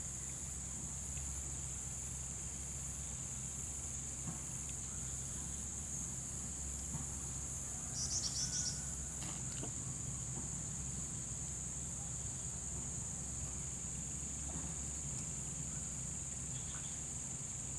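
Insects chirring steadily in a high, even drone, with a short burst of higher chirps about eight seconds in, over a low steady hum.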